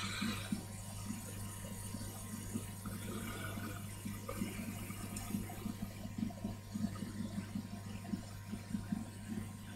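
Hot air rework station blowing a faint steady rush of air, with a constant electrical hum underneath.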